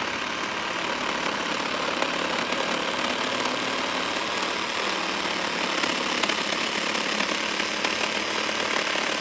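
Makita 12-volt cordless jigsaw with orbital action on, its blade sawing steadily through a thick 2x6 board without bogging down.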